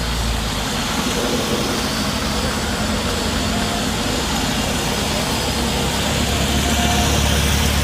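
Steady vehicle engine noise with a low rumble, a little louder near the end.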